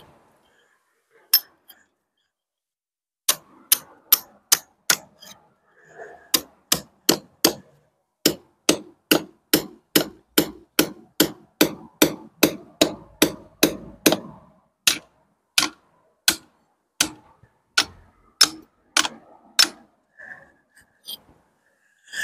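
Hammer striking a steel plugging chisel, driving it into soft old lime mortar between bricks to break the mortar away: sharp metallic taps, a few at first, then a steady run of about two to three a second through the middle, then more spaced out.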